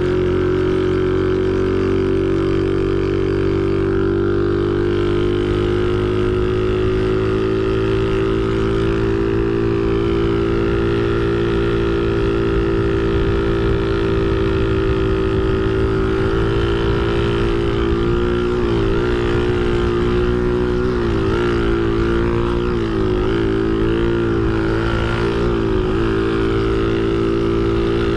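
Shineray Phoenix 49 cc scooter engine running steadily while riding, heard from the rider's seat. About halfway through, the engine speed rises and falls several times before settling.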